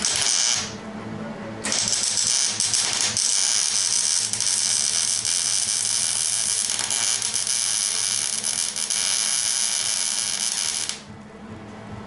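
Electric arc welding: a welder's arc crackling and hissing while a nut is welded onto a broken-off exhaust stud. There is a short burst at the start, then a long steady run of about nine seconds that stops about eleven seconds in.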